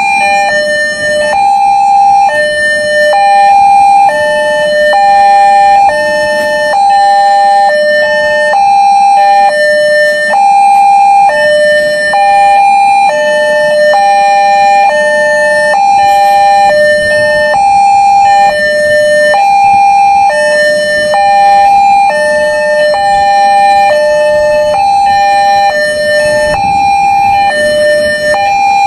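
Railway level-crossing warning alarm: an electronic two-tone chime alternating evenly between a lower and a higher note, about one high-low pair a second.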